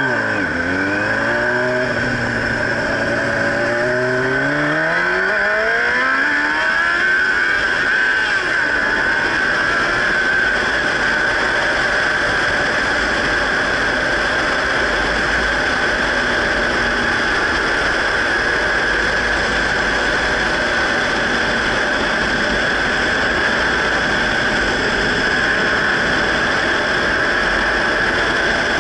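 Motorcycle engine accelerating from a stop, its pitch climbing and dropping back several times as it shifts up through the gears over the first eight seconds or so. After that, steady wind rush over the camera microphone at cruising speed covers the engine.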